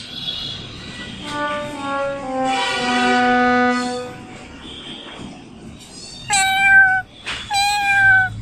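A comic sound effect of brass-like notes stepping down in pitch, ending on a long low note, followed by a cat meowing twice near the end, each meow falling slightly in pitch.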